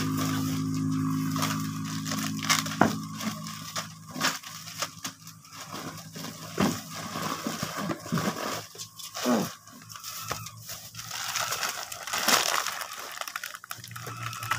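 Plastic bags and packets crinkling and rustling in the hands as relief goods are packed, with scattered clicks and crackles. A steady low hum underneath fades out after about three seconds.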